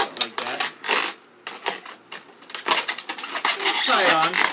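Latex twisting balloons squeaking and rubbing against each other as a red 260 balloon is twisted around the neck of a balloon dog, in a string of short scrapes and squeaks, with a longer sliding squeak near the end.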